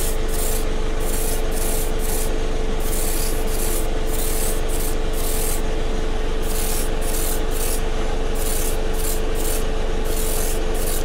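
Airbrush spraying a mist coat of grey primer in about twenty short on-off bursts of hiss, each under a second. A steady mechanical hum runs beneath.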